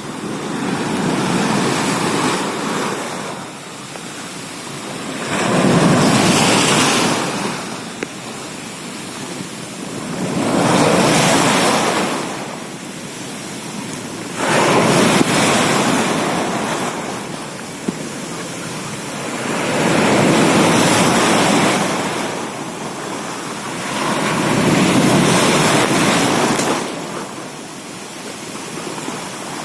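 Big Red Sea waves breaking on the shore one after another, each surge rising and falling away about every four to five seconds: a sea too rough for swimming.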